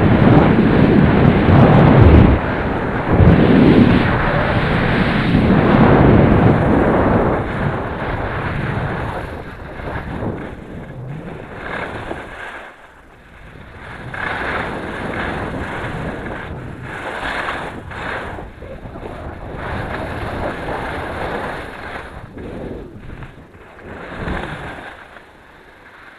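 Wind rushing over an action camera's microphone as a skier descends, loud for the first several seconds. It then eases, and ski edges hiss and scrape on packed snow in surges every second or two as the skier turns.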